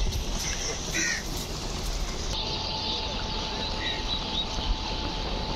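Open-air farm ambience of steady rushing noise with a few short bird calls, which sound like crows cawing. About two seconds in the sound changes abruptly and a faint steady hum runs beneath it.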